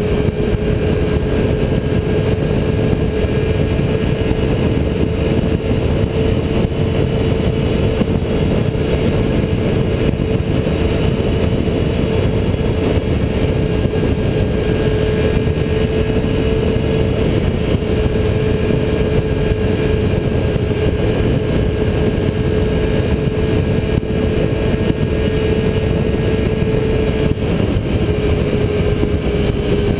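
Motorcycle cruising at steady highway speed: a constant rush of wind on the bike-mounted microphone over the engine's steady hum, which eases slightly in pitch near the end.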